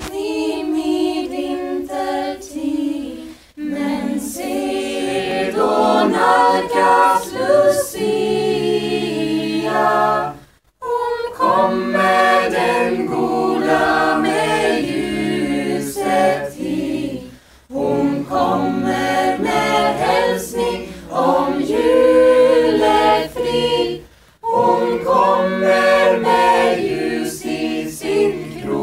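Lucia procession choir of young mixed voices singing a cappella, in long phrases with short pauses between them about every seven seconds.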